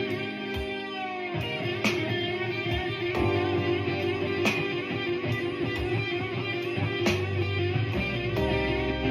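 Guitar playing the blues, with held notes and picked lines.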